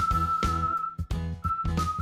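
Background music: a high, whistle-like melody over a steady beat and bass.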